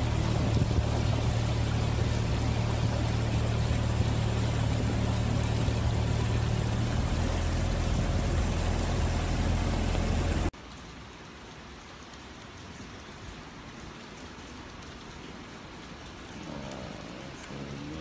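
A motor vehicle's engine hums steadily under a loud rush of rain. About ten seconds in, the sound cuts suddenly to quieter, steady rain, with a faint voice near the end.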